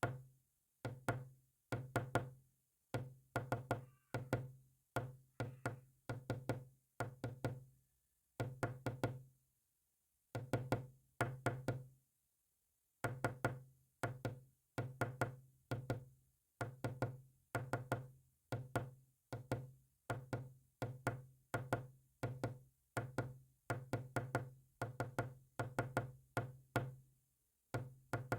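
Morse code sent as rapid knocking clicks, in short clusters of several clicks with a low buzz under each cluster, separated by brief pauses.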